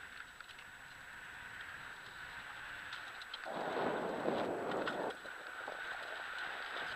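Wind buffeting the microphone and tyres rolling over a dry dirt singletrack on a mountain-bike descent, with no engine. A louder gust of wind rush comes about halfway through and lasts a second and a half.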